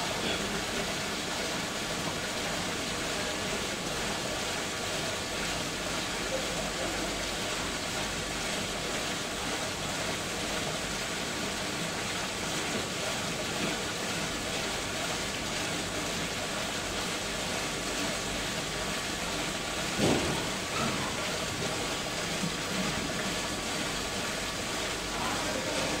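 Water running steadily through a drum filter and its PVC inlet pipework during a flow test, a constant rushing with a faint steady hum. One short knock about twenty seconds in.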